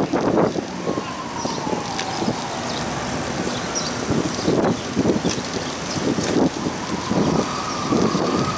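Street and traffic noise heard from a moving bicycle, with wind buffeting the microphone and scattered knocks. A thin, drawn-out whine falls in pitch from about a second in, and a similar steady tone returns near the end.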